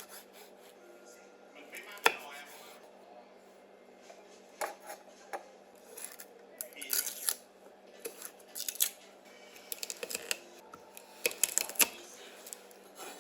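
Kitchen handling sounds: irregular clicks, clinks and short scrapes of utensils and dishes, with a sharp knock about two seconds in and busier clusters in the second half.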